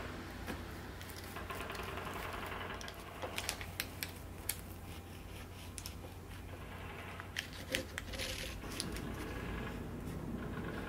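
Knife sawing through a baked focaccia, its crisp crust crackling in small clusters of crackles, once a few seconds in and again past the middle, over a faint steady low hum.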